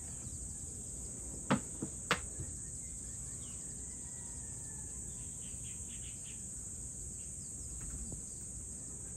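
Insects trilling in a steady high-pitched drone over a low background rumble, broken by two sharp knocks about a second and a half and two seconds in. A few faint chirps come through in the middle.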